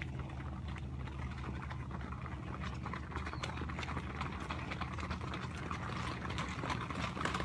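Hoofbeats of a herd of horses on a wet dirt road, growing louder as the herd approaches. A steady low engine hum runs underneath.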